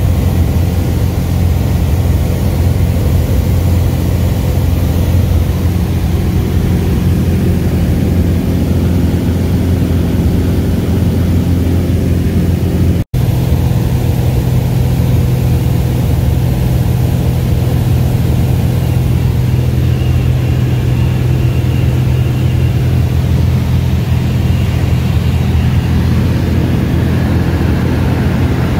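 A single-engine Cessna's piston engine and propeller droning steadily in cruise, heard inside the cabin. The sound drops out for an instant about halfway through, then goes on with a slightly different tone.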